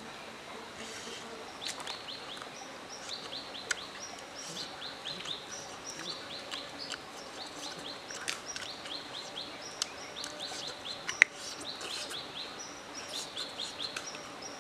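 Wild birds calling in quick runs of short, high chirps, repeated again and again. Scattered sharp clicks from close chewing cut through, the loudest a single click about eleven seconds in.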